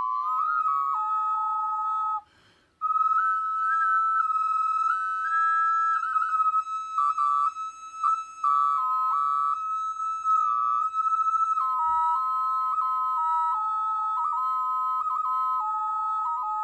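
Small double ocarina played in two voices: one chamber mostly holds a steady high note while the other moves a melody below it. There is a brief break for breath about two seconds in and a quick trill near the middle.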